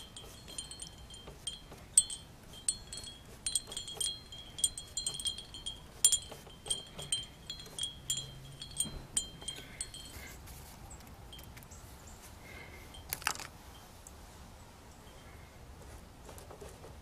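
Metal wind chimes tinkling: many quick, high, ringing notes over the first ten seconds or so, then dying away. A single sharp tap comes later.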